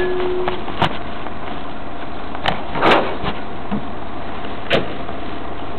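Heil 5000 rear-loader recycling truck running steadily, with a held whine that stops about half a second in. A few sharp knocks and clanks come as recyclables are loaded at the hopper, the loudest about three seconds in.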